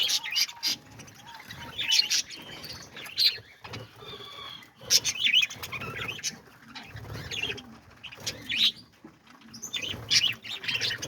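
A flock of parakeets chirping in short, busy clusters, with wings flapping as birds move about the aviary.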